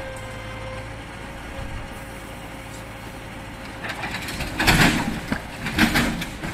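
A heavy truck's engine running steadily with a thin steady whine while a tipped semi-trailer truck is winched back upright. About four seconds in come loud bangs and creaks, twice, as the rig drops back onto its wheels and settles.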